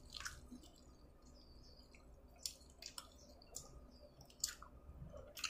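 Faint wet mouth clicks and lip smacks of people eating seafood with their fingers: a handful of short, sharp clicks scattered over a quiet background.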